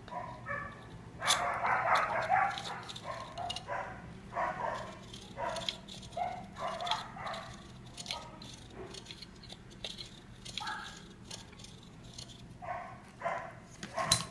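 A dog barking and yipping in many short calls, with small clicks in between.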